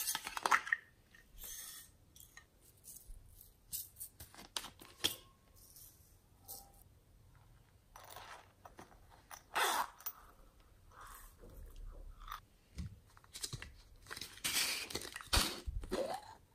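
Plastic novelty slime containers being handled and opened: irregular clicks, taps and rustling scrapes of plastic under fingers and nails, with louder clusters near the start, about ten seconds in and near the end.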